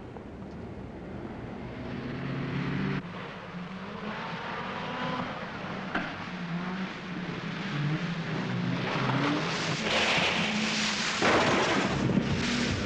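Cars driving fast, their engines running hard, getting louder over the last few seconds.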